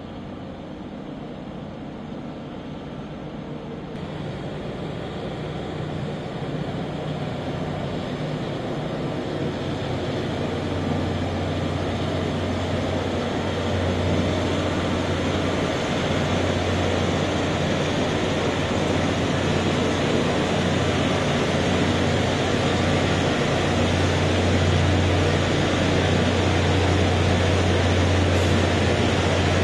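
Loram rail grinding train passing: its grinding stones make a steady, rushing grind on the rails over the low, steady drone of its diesel engines. It grows louder through the first half, then holds loud.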